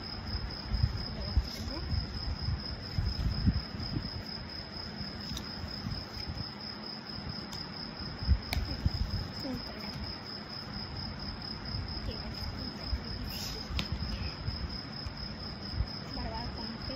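A cricket trilling steadily at a high pitch, with low thumps and rustling from hair clips and a card being handled close to the microphone, and a few sharp clicks, the loudest about eight and a half seconds in.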